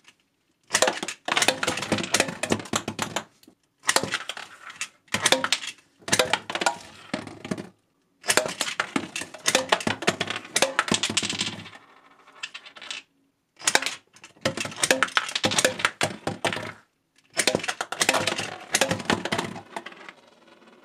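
Plastic bottle caps fired rapid-fire from a Bottleman toy blaster, clacking against plastic drink bottles that tip over and roll, with the caps clattering across a hard tabletop. The clatter comes in about seven quick bursts with short silent breaks between them.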